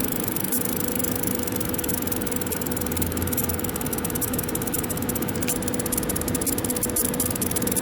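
Vinotemp VT12 thermoelectric wine cooler running on its faulty switching power supply, which has a swollen capacitor. It gives a steady hum with a fast, fine ticking rattle over it.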